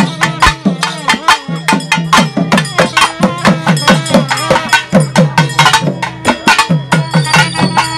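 Traditional drumming on barrel drums in a fast, driving rhythm, several strokes a second, with ringing pitched tones under the beats.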